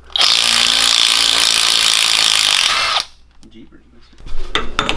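Milwaukee M12 cordless impact tool running on the axle nut at the centre of a front wheel hub for about three seconds, then stopping. A few metal clinks of tools near the end.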